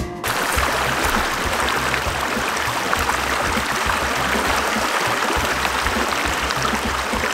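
Shallow river water running steadily over stones and gravel: the West Fork of the Gila River.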